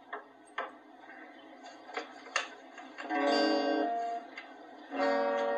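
Acoustic guitar: a few short clicks, then a chord strummed about three seconds in and another near the end, each left ringing.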